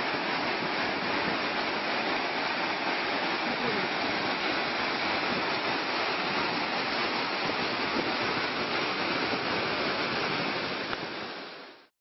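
Ouzoud waterfalls: a steady, loud rush of water pouring over rock ledges into a pool. It fades out near the end.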